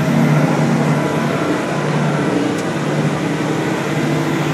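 Repowered Caterpillar 637 scraper's diesel engine running at a steady pitch, heard from inside the cab.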